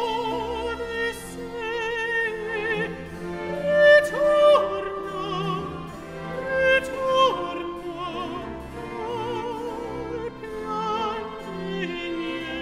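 A countertenor singing an operatic aria with vibrato, over a string orchestra accompaniment. The voice is loudest on held notes about four and seven seconds in.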